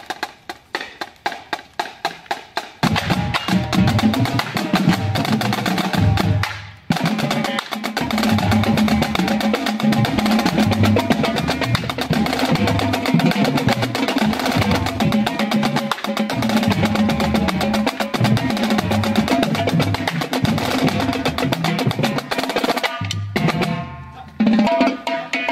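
Marching drumline of snare drums and tenor drums playing a mambo cadence. It opens with sharp clicks, about five a second, and the full drumming comes in about three seconds in. There is a brief break near seven seconds and another shortly before the end.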